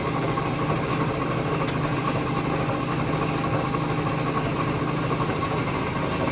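LeBlond Regal engine lathe running under power, its headstock gearing and feed drive making a steady mechanical hum.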